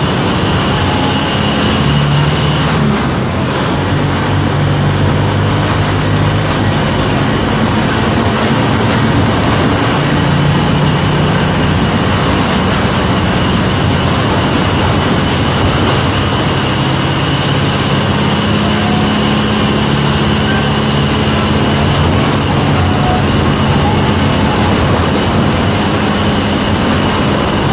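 City bus engine running under way, its note stepping up and down several times as the bus speeds up and slows, with a thin steady high whine above it.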